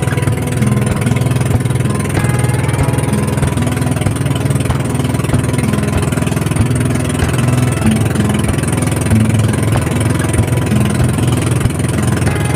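Engine of a motorized outrigger banca running steadily at cruising speed.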